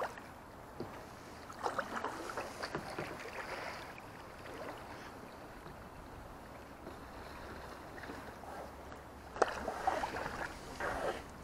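Kayak paddle strokes splashing and water lapping against the kayak's hull, with a louder run of paddle splashes near the end.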